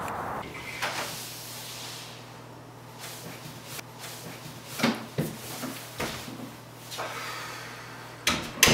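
Interior door being handled: scattered handle clicks and soft knocks as it opens, then two loud knocks near the end as it is pushed shut, over a steady low hum.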